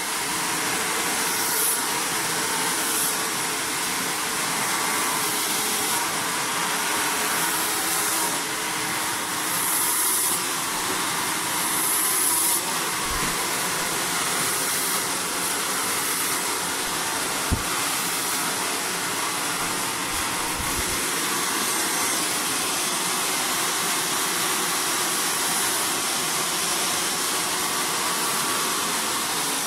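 Hand-held hair dryer blowing steadily while a round brush draws the hair straight, the blow-dry stage of a keratin straightening treatment. A single sharp click sounds a little past halfway through.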